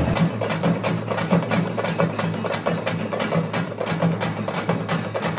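Music with fast, busy percussion: many quick, sharp strikes over a low sustained note.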